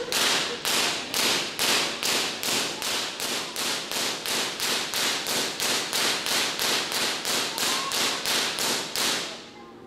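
Artificial lightning: a fast, steady string of loud high-voltage electric sparks cracking about three times a second, stopping shortly before the end.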